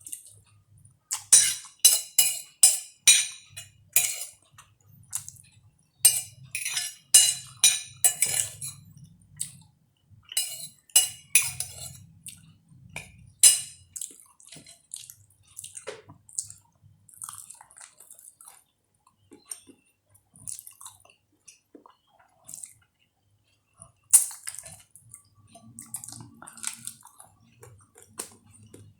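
Eating at a table: a spoon clinking and scraping on a plate and bowl, with wet slurping and chewing of soup and soy-sauce chicken feet. The clicks come in dense runs for much of the first half, thin out, then return in a short burst about 24 seconds in.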